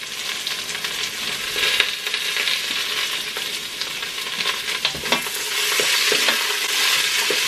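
Chopped onions sizzling in hot oil in a stainless steel pot as they are stirred with a spatula, with a few taps of the spatula against the pot about five seconds in.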